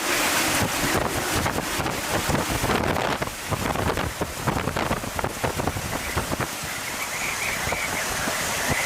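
Hurricane wind gusting hard across the microphone: a dense, loud rushing noise that surges and buffets. A faint high whistle comes in about seven seconds in.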